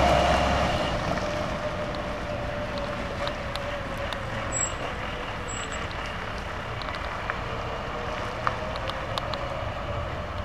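Fire water tender's engine passing close and fading over the first couple of seconds as it drives away, leaving a steady, more distant drone with a faint held tone.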